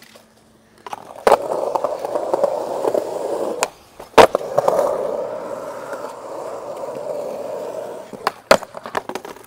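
Skateboard wheels rolling on smooth concrete, broken by a gap and then a loud clack about four seconds in as the board lands an ollie. It rolls on until two sharp clacks near the end, with the board knocking against a ledge as the trick goes wrong.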